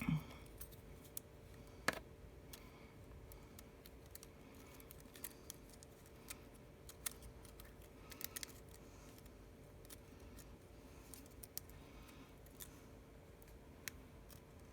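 Scattered small clicks and ticks of a plastic spudger prying at a circuit board inside an iPhone 6s, about ten of them at uneven intervals, over a faint steady hum.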